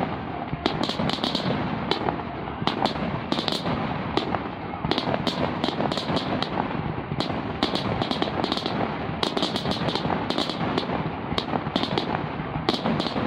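Fireworks display: aerial shells bursting in rapid succession, with clusters of sharp bangs and crackles every second or two over a continuous rumble.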